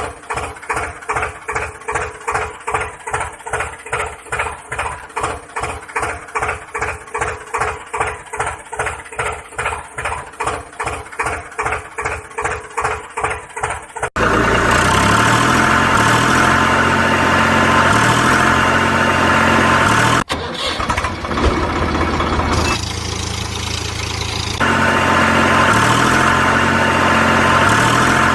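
Tractor engine chugging in even pulses of about three a second. About halfway through it cuts suddenly to a louder, steady running, its low note stepping up and down, with a brief dropout and a quieter stretch near the end.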